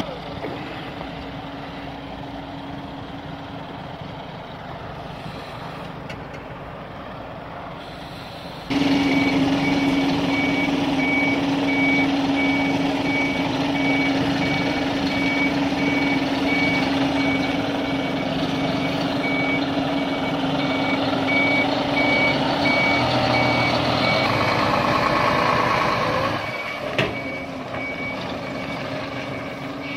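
Scania R580 truck's V8 engine running, and from about nine seconds in its reversing alarm beeping at a steady, even pace as it backs up. A brief sharp click near the end.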